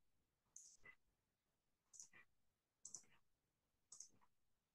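Faint computer mouse clicks: four quick pairs of clicks about a second apart, over near silence.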